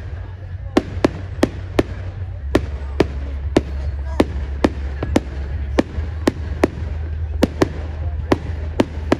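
Aerial fireworks bursting overhead in a rapid, uneven series of sharp bangs, about two or three a second, over a steady low rumble.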